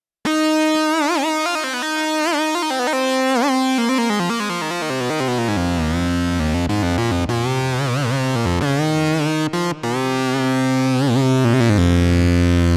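Sequential OB-6 analog polyphonic synthesizer playing a preset: keyboard notes and chords whose pitch wavers. Deep bass notes join about halfway through, and there are two very short breaks about three-quarters of the way in.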